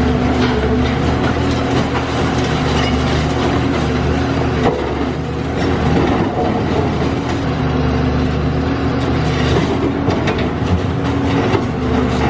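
Caterpillar high-reach demolition excavator's diesel engine running steadily under load, with concrete cracking and crunching and debris knocking as the building is torn apart.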